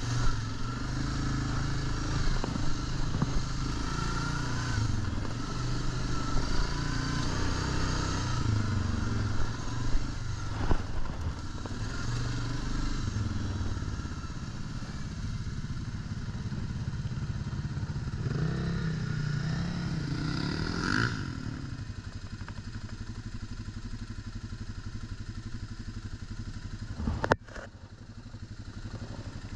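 Suzuki ATV engine running on a dirt trail, with clatter and knocks from the machine over bumps. About two-thirds through the engine rises in pitch, then drops back to a lower, steadier running sound. A sharp click comes near the end.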